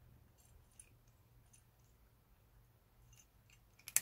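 A Persian Chinchilla cat eating from a ceramic bowl: faint, scattered crisp clicks of chewing, with one sharp, louder click near the end.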